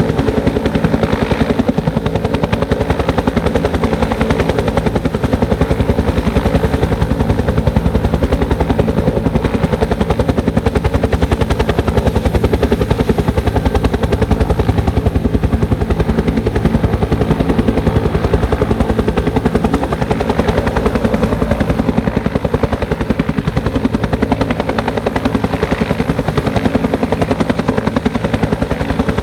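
Bell 205 helicopter running steadily: a rapid, even rotor chop over a constant turbine and gearbox tone.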